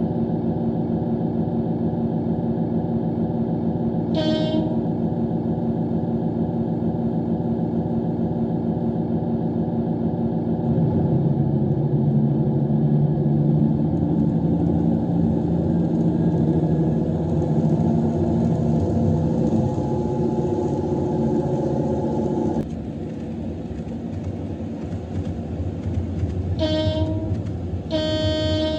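Sound-card reproduction of a KiHa 85 series diesel railcar's Cummins engine, played through a model train's speaker: the engine runs steadily, grows louder about a third of the way in as it powers up, then drops back abruptly later on. A short horn toot sounds early, and two more toots near the end, the second longer.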